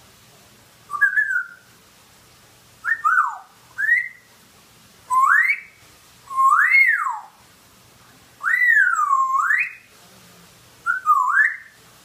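African grey parrot whistling: about seven separate whistled notes with gaps between them, each sliding up and down in pitch, several swooping up and back down.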